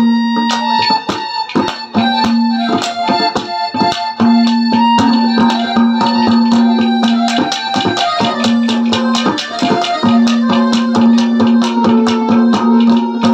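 Instrumental interlude of a Haryanvi ragni band: a keyboard instrument holds a low drone note that breaks off now and then, under a melody line, with quick, dense hand-drum strokes throughout.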